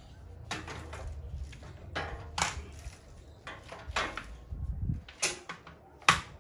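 Irregular knocks and clatter of hard objects being handled and set down under a sewing machine table, about seven sharp strikes, the loudest near the end, with a faint low hum fading out in the first couple of seconds.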